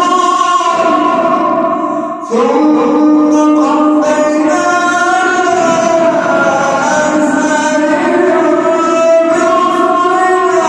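A man reciting the Quran in a melodic, drawn-out chant, holding long notes. There is a brief break about two seconds in, then the voice comes back on a new long note.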